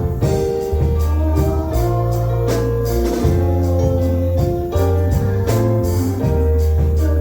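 Instrumental gospel music: held keyboard chords over a deep bass line, with percussion keeping a steady beat.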